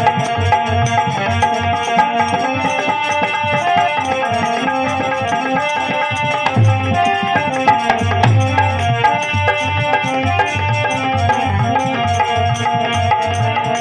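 Instrumental interlude of a folk devotional song: a hand drum keeps a steady rhythm of low strokes under a melody of held notes.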